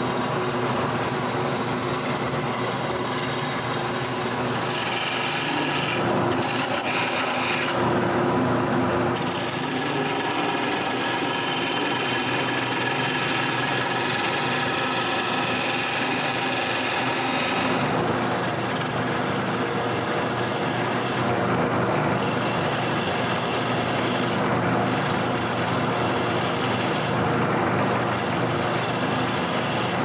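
Wood lathe running while a hand-held turning gouge cuts a spinning wooden post: a steady rasping hiss of shavings coming off over the lathe's hum. The cutting breaks off briefly several times as the tool is lifted, leaving the lathe running alone.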